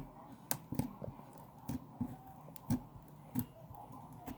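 Slime and Play-Doh being kneaded together by hand: short sticky clicks and squelches at irregular intervals, about one or two a second.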